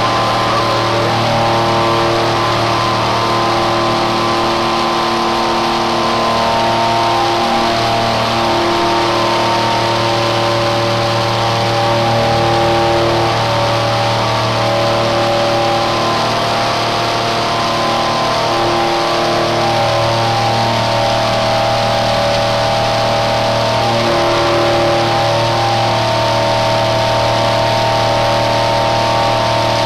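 Three-axis Okuma CNC mill cutting a metal billet into a Honda CBR600RR oil pan under flood coolant. Steady spindle and cutting whine whose pitches shift every few seconds as the cut changes, over the hiss of the coolant spray.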